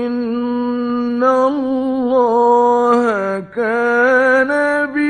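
A male Quran reciter's voice in mujawwad tajweed recitation, drawing out long, ornamented melodic notes. The voice breaks briefly about three and a half seconds in, then goes on.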